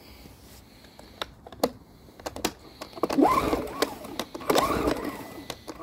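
Yardworks 950W inverter generator's recoil starter pulled twice, each pull a whir that rises and then falls in pitch as the engine turns over without firing. A few clicks and knocks of handling come before the pulls. The owner takes the failure to start for fuel not yet reaching the carburetor.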